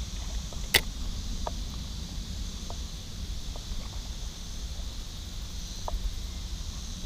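Wind rumbling on the microphone, with a steady high hiss over it. One sharp click about three-quarters of a second in, then a few faint ticks.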